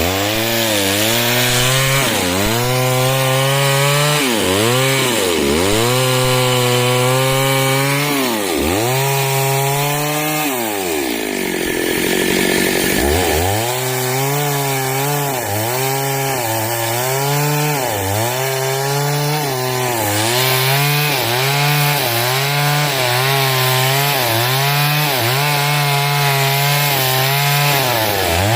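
Stihl chainsaw cutting into wood, its engine pitch dropping each time the chain bites under load and rising again as it frees. After a brief easing about eleven seconds in, it bogs and recovers about once a second.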